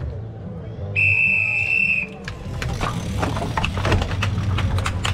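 Race official's whistle blown once: a single steady blast about a second long, starting the bike race. After it, a scatter of sharp clicks and a rising rumble as the riders get going.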